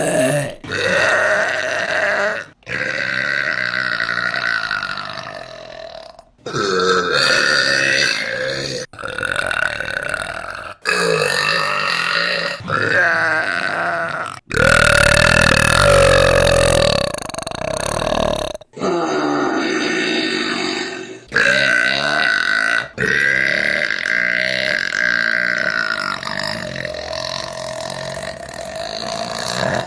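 A woman's long, drawn-out burps, one after another: about nine of them cut together with abrupt breaks between. Each runs from one to several seconds.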